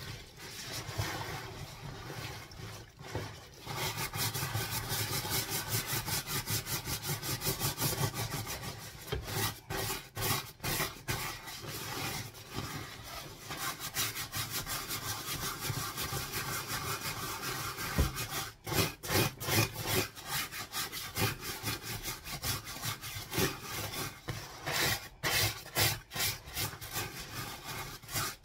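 Stiff-bristled scrub brush scrubbing the wet shell of a puffer jacket in rapid back-and-forth strokes, with a few short pauses. The strokes start a few seconds in, after the hands work the soaked fabric.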